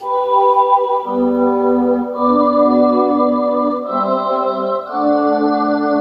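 Roland D-50 synthesizer playing its church organ preset: a slow run of five held chords, each changing to the next about a second apart.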